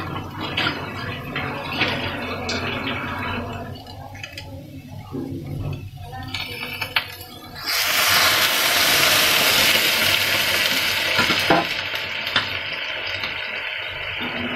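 Onions and garlic sizzling in oil in a hot kadai. About eight seconds in, water poured into the pan hits the hot oil with a sudden loud hiss, then eases to a steadier bubbling sizzle.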